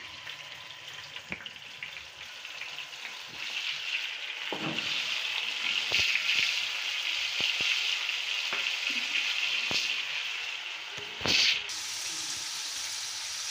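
Marinated chicken leg pieces sizzling in hot oil in a nonstick kadhai over a high flame as they are laid in one after another. The sizzle swells from about three seconds in and then holds steady, with scattered small clicks and one louder knock near the end.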